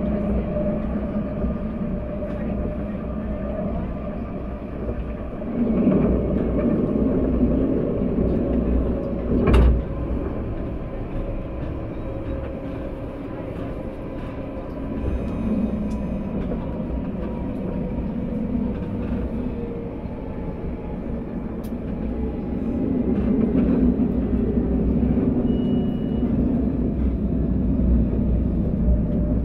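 Alstom Citadis tram on Paris line T3a running along the track: a steady rumble of wheels on rail, with a faint motor whine that slowly falls in pitch. A single sharp knock about ten seconds in.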